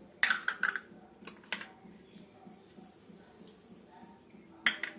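A steel spoon clicking and scraping against a plate as spice pastes for a fish marinade are spooned in. There is a quick cluster of sharp clicks just after the start, two more around a second and a half, and one near the end.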